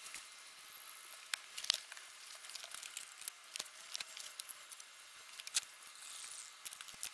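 Plastic carrier bag crinkling and crackling as it is handled close to the microphone, a quick run of irregular sharp clicks. A small bird gives a short high chirping trill near the start.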